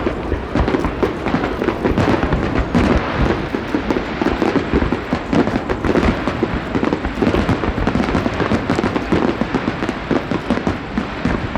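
Fireworks display: a dense, continuous barrage of bangs and crackles from many shells bursting in quick succession.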